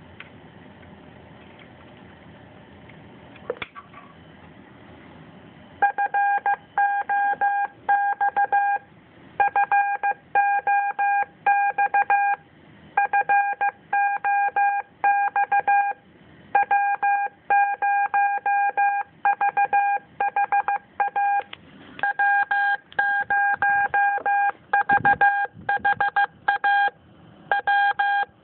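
ID-O-Matic II repeater ID board sending its CW identification as a Morse code beep tone, keyed rapidly on and off in runs of about three seconds with short gaps: the programmed "FOX FOX FOX W0VHA W0VHA W0VHA" fox-hunt ID. A single click comes about three and a half seconds in, and the Morse starts about two seconds later.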